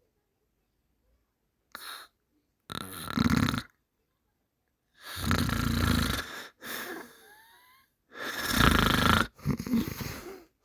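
Heavy snoring: about four rough, loud snores a few seconds apart with silent pauses between, the middle one trailing off into a thin rising whistle.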